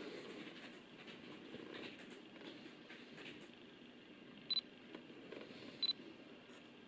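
Olympus OM-D E-M1 Mark III giving two short, high electronic beeps about a second and a half apart, its focus-confirmation beep as autofocus locks onto the subject. A faint low rustle runs underneath.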